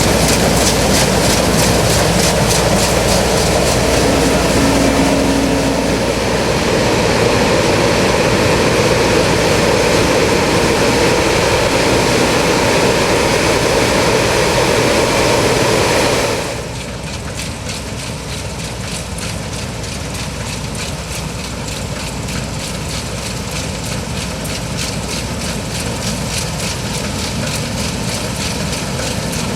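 New Holland CX8090 combine harvester running, a loud, steady mechanical noise. About halfway through it suddenly turns quieter and duller, then slowly builds again.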